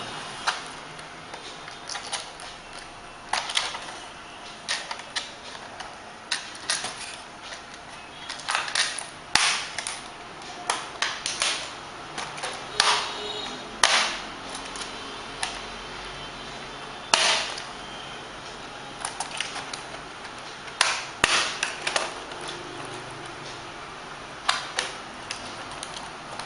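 Irregular sharp clicks and snaps of plastic clips popping loose as the plastic cover panel on an Acer 4730G laptop's top case is pried off, with a few louder cracks among them.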